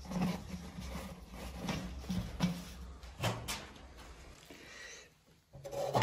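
Rustling and scraping of a dust bag being handled inside a steel vacuum-cleaner drum, with a few sharp knocks. It drops out briefly near the end.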